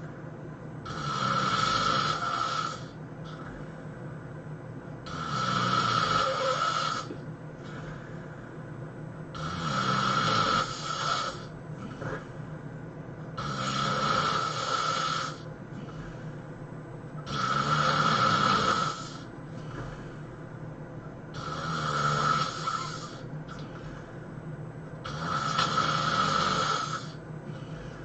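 A sleeping person snoring loudly: seven long snores, evenly spaced about every four seconds, each lasting a second and a half to two seconds, with quieter stretches between them.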